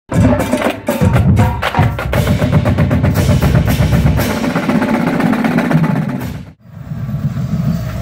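Drum-heavy music with snare rolls and fast clicking strikes, cutting off abruptly about six and a half seconds in. It is followed by the low, steady sound of police motorcycle engines running at parade pace.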